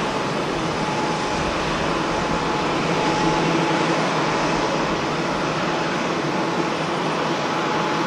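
Jet airliner engines running as a StarFlyer Airbus A320 rolls along the runway: a steady rush with a faint high whine underneath.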